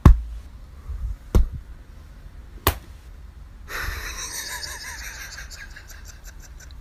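Three sharp slaps of hands onto a round tray, about a second and a half apart, followed from about four seconds in by steady breathy snuffling noise.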